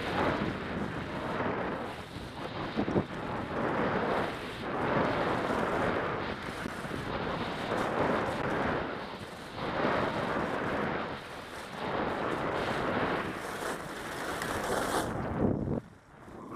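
Skis scraping and carving over hard, grainy snow on a downhill run, with wind rushing over the microphone. The noise swells and fades with each turn, every second or two, then drops away suddenly near the end.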